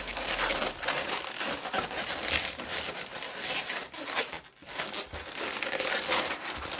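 Inflated 260 latex balloons being handled and twisted into a small pinch twist, a dense crinkly rubbing and squeaking of latex against latex and fingers, with a brief pause a little past the middle.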